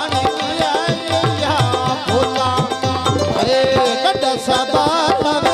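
Live South Asian folk music: a hand drum keeps a quick, steady beat under a wavering melody line.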